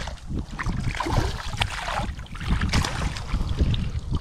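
A hooked fish thrashing and splashing at the water's surface close by, then water sloshing as it is scooped into a landing net. There is a steady rumble of wind on the microphone underneath.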